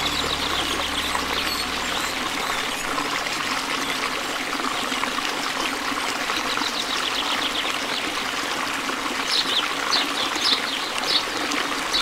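Waterfall and river rapids rushing steadily, an even wash of water noise. A low sustained music drone fades out about two seconds in, and a run of short high chirps comes in over the last few seconds.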